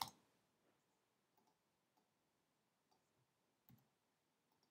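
Near silence: room tone with a few faint, scattered clicks from a computer mouse and keyboard as commands are copied and pasted into a terminal.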